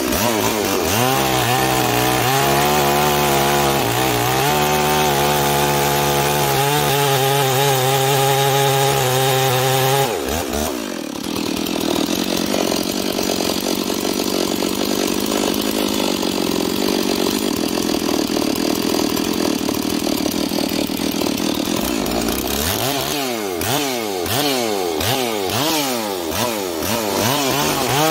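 Ported Stihl 046 two-stroke chainsaw running hard at a log round: a steady high engine note for the first ten seconds, a changed engine sound out of the wood, then the engine speed surging up and down over and over as it cuts near the end. The owner judges this ported saw as not running well in wood.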